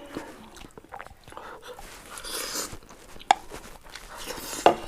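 Close-up eating of ramen noodles: a half-second slurp around the middle, small wet chewing noises, and two sharp clicks in the second half, the second one near the end the loudest.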